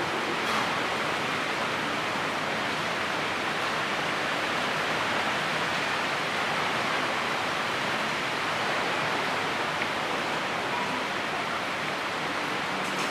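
Steady rainstorm rain, an even hiss that does not let up.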